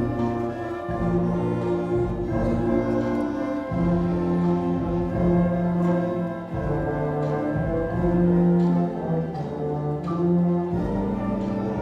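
School concert band playing, the brass section holding long low notes that move to a new pitch every second or two.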